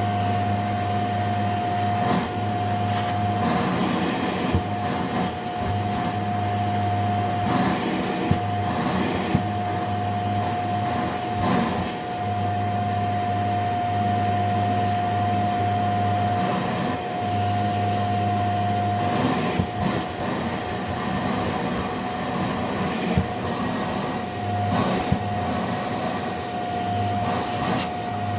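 Upright vacuum cleaner running on shag carpet, a steady motor whine and hum, with brief knocks and rattles now and then as it is pushed over the pile.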